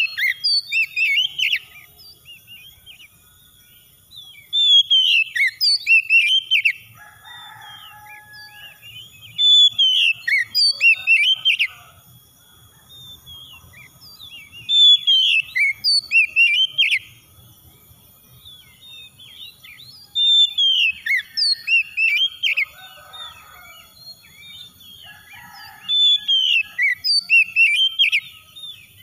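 Oriental magpie-robin singing: about six phrases of loud, clear whistled notes, each lasting about two seconds, with pauses of a few seconds between them.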